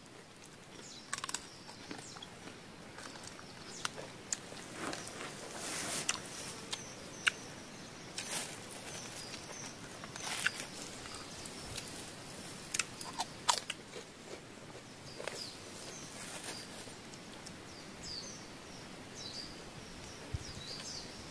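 People eating a meal: kerupuk crackers crunching, with scattered sharp clicks and rustles. Faint high chirps sound in the background, more of them near the end.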